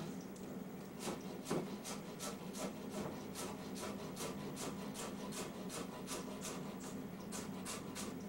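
Rhythmic rubbing or scraping strokes, about three a second and evenly paced, starting about a second in and going on steadily.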